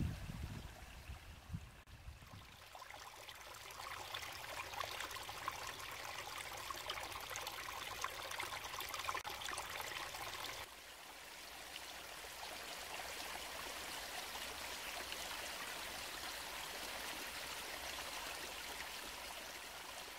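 Steady rush of running water, with a fine splashing texture, changing abruptly about halfway through.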